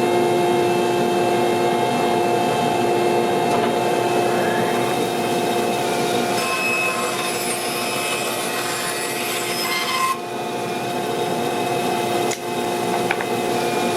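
Band saw ripping thin wooden strips while a drill-driven power feeder pushes the stock through: a steady motor hum under the rasp of the blade cutting wood, with a brief dip in level about ten seconds in and again near the end.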